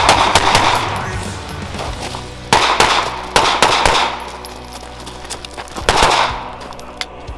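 Semi-automatic pistol fired in quick pairs, with short reverberant tails. There is one cluster of shots near the start, two around the middle and one about six seconds in. Background music with steady low tones plays underneath.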